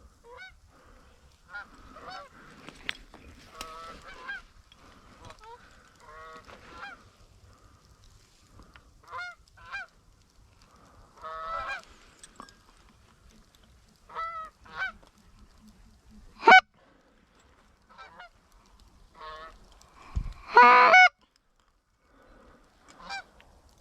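Goose honks and clucks: many short calls scattered throughout, with a loud single honk about sixteen seconds in and a longer, louder burst of calls about twenty seconds in.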